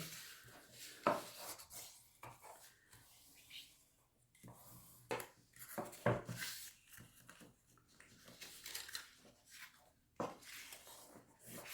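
Scored white card being folded and burnished on a tabletop: a few light knocks and taps of card and tool on the table, with soft rubbing and paper handling between them.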